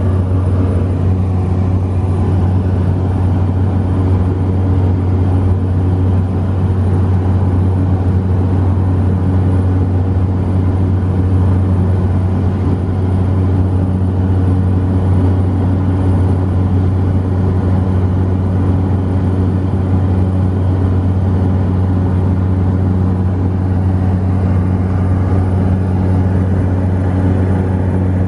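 Cabin noise of a Cessna 208B Grand Caravan in flight: its single Pratt & Whitney PT6A turboprop engine and propeller make a steady, loud drone with a strong low hum.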